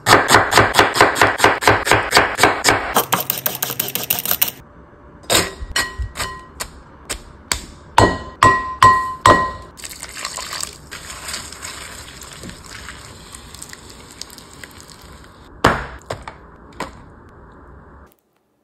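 A run of kitchen sounds. First come fast, regular scraping strokes, then a brief hiss. Then a utensil clinks sharply against a glass mixing bowl several times, some clinks ringing briefly, before quieter mixing of coleslaw and a single knock near the end.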